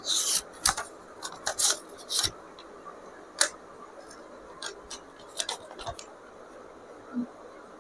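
Small paper crinkles and sharp clicks of a folded paper chit being drawn out and unfolded by hand, irregular and thickest in the first couple of seconds, then a few scattered ticks.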